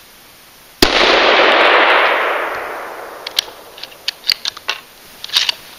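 A single unsuppressed shot from a heavy-barreled .308 bolt-action rifle, a sharp crack about a second in followed by a long echo that fades over about two seconds. Then a run of short metallic clicks as the bolt is worked.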